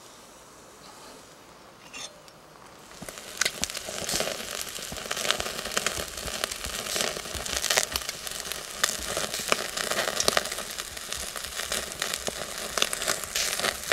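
Raw chicken yakitori skewers sizzling on a wire grill net over a charcoal-fired shichirin as the meat starts to cook. The sizzle comes up about three seconds in, with frequent sharp crackling pops.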